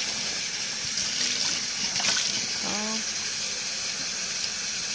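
Kitchen tap running into a pot held in a stainless steel sink: a steady rush of water as the pot fills.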